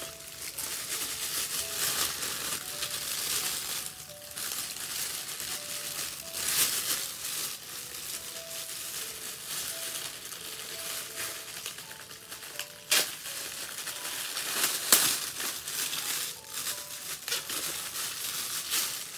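Plastic wrapping crinkling and rustling as the parts of a guitar stand are unwrapped and pulled from their bags, with a few sharp knocks of the parts being handled, two of them louder past the middle.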